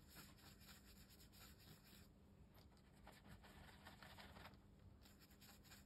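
Very faint soft brushing of a watercolour brush on paper, in a few intermittent strokes as it wets and works the paint.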